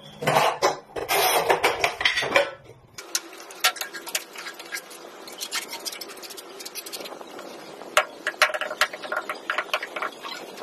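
Background music for about three seconds, then a run of light, scattered clinks and taps from ceramic tiles and tiling tools being handled during wall tiling, with a cluster of quick clicks late on.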